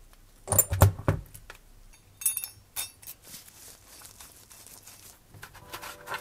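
Handling noises from the metal parts of a radial engine model kit: a few heavy knocks about half a second in, then a run of sharp metallic clicks and light scraping.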